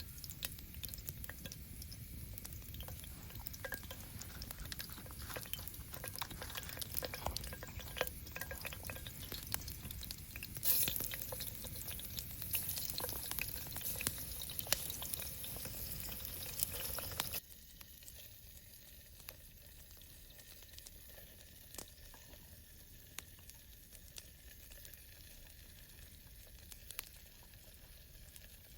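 Food sizzling over a campfire, with scattered small crackles. The sizzle grows louder and brighter for several seconds before the middle, then cuts off abruptly to a quieter stretch of faint crackles.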